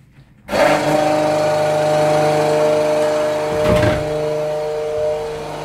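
A 12-volt Rainman watermaker's pressure unit switching on about half a second in and running steadily: its electric motor and high-pressure pump give an even hum made of several steady tones.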